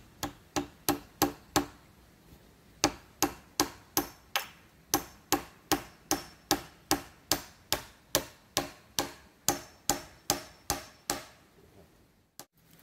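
A hand tool striking wood in a quick, even rhythm, about three blows a second, with a short break after the first six blows; the blows stop shortly before the end.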